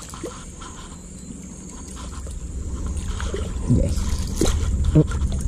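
A hooked fish splashing and thrashing in shallow stream water as it is drawn in to the bank, with a cluster of splashes a little more than halfway through. Under it runs a low rumble that grows louder from about halfway.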